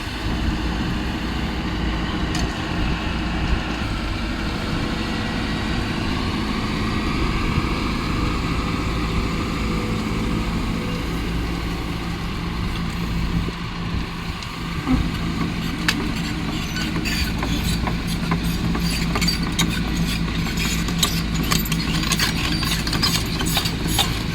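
Kobelco excavator's diesel engine running steadily. From about two-thirds of the way in, a rapid run of clicks and rattles is added on top.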